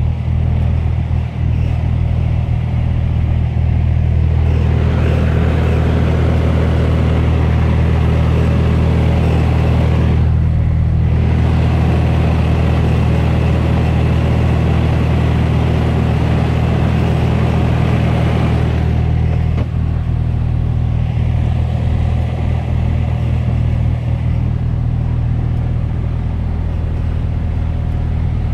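Mercedes-Benz Antos 1833's 10.7-litre six-cylinder diesel running at low revs, a steady drone heard inside the cab. A rushing noise comes in over it about four seconds in, drops out for about a second near the ten-second mark, and fades near nineteen seconds.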